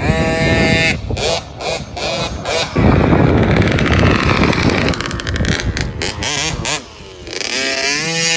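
KTM 50's small single-cylinder two-stroke engine revving up as the mini dirt bike rides toward and past close by, with a high buzzing rise in the first second, the loudest stretch as it passes, and another steady high rev near the end.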